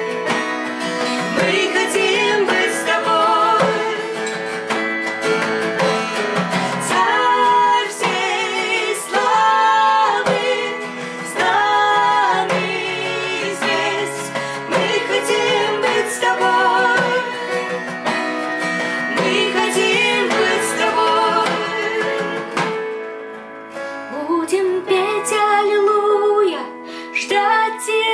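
Worship song: a woman singing over an acoustic guitar and keyboard. The music dips briefly near the end.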